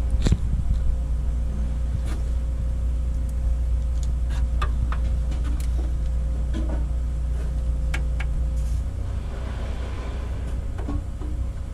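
A steady low mechanical drone, weakening about nine seconds in, with scattered light metallic clicks and taps as locking pliers and a steel radiator-mount bracket are handled against a car's chassis.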